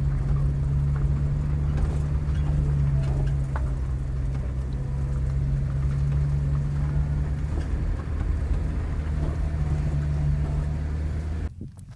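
A vehicle engine running with a steady low drone, cutting off suddenly near the end.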